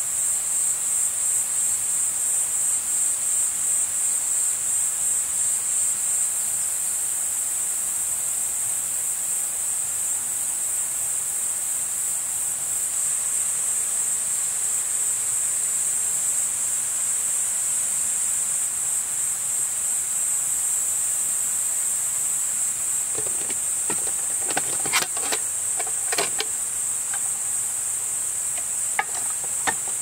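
A chorus of insects chirping in a steady, high-pitched trill that pulses rhythmically for the first few seconds. A few short clicks and knocks come in near the end.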